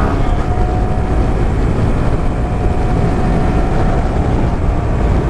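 Honda Grom's 125 cc single-cylinder engine running at a steady pace while riding, mostly covered by a heavy rush of wind on the microphone.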